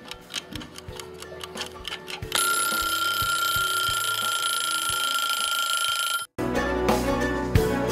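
Mechanical wind-up kitchen timer ticking at about four ticks a second, then its bell ringing steadily for about four seconds before cutting off suddenly: the timer going off because the cooking time is up. Music starts near the end.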